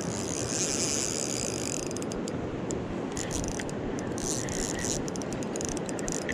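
Fishing reel clicking and buzzing as a big steelhead is played on the line: one long run for about the first two seconds, then shorter spurts, over the steady rush of the river.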